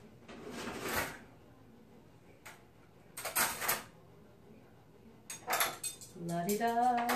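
A kitchen drawer opened and shut, with cutlery clinking as a spoon is taken out, in a few separate rattles and clicks. A woman's voice comes in near the end.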